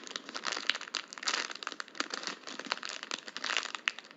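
Plastic packaging crinkling with many small, irregular crackles as squishy toys are handled.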